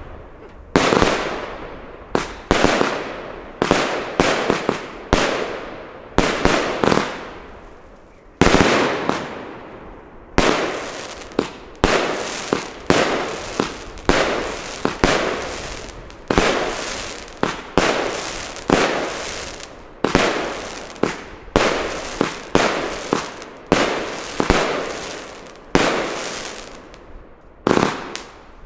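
Funke Bajka firework battery (cake) firing shot after shot, often one to two a second, each a sharp bang with a fading tail. The firing pauses briefly about a third of the way in.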